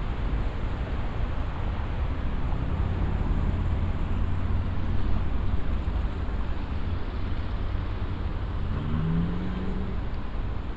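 Street traffic: a steady low rumble of passing cars. Near the end, one vehicle's engine rises in pitch as it speeds up.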